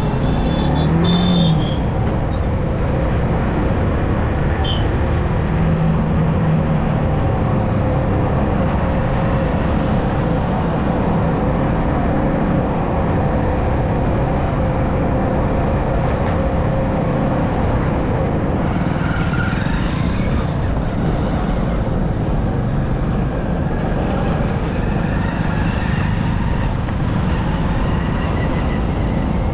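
Steady riding noise from a Yamaha R15 motorcycle moving slowly through traffic: engine and road noise blend into one constant sound. A few brief tones come through about a second in and again around six seconds in.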